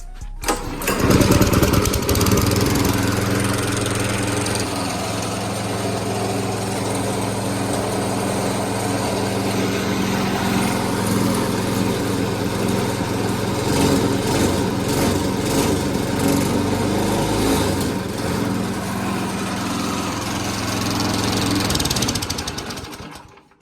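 A 6.5 hp 200cc single-cylinder four-stroke go-kart engine starts about a second in and runs steadily. It drives nothing, because no clutch, sprocket or chain is fitted yet. It cuts off suddenly near the end.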